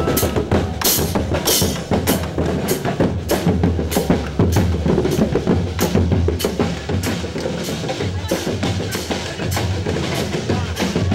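Street-band drums playing a fast, steady rhythm, with bass drum and snare strokes.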